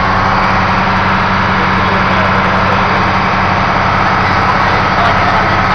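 Small passenger boat's engine running steadily under way, a low even hum heard from on board over the rush of water and air.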